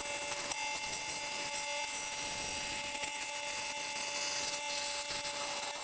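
Scroll saw running at high blade speed, cutting a hole through a sheet-metal dash panel: a steady buzz with a constant hum tone over the hiss of the blade.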